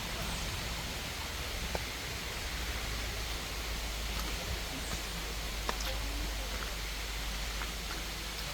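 Steady outdoor rushing noise with a constant low rumble, and a few faint clicks scattered through it.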